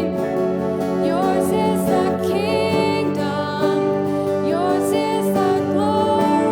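Worship music: a sung melody with vibrato over sustained instrumental chords.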